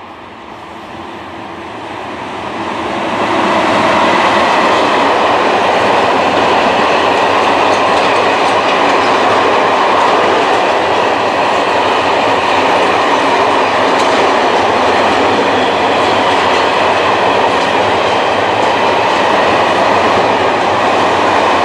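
Freight train of hopper wagons passing close by: the rolling noise of wheels on rail builds over the first few seconds as the train approaches, then stays loud and steady as the wagons roll past.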